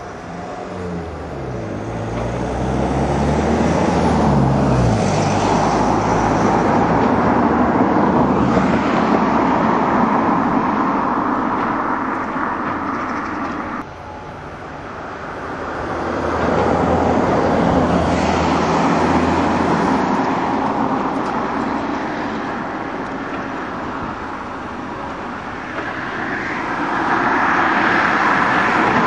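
Diesel engine of a tracked excavator working under load, its pitch rising and falling as it revs in the first few seconds, over a steady loud mechanical noise. The sound drops sharply about halfway through, then builds again.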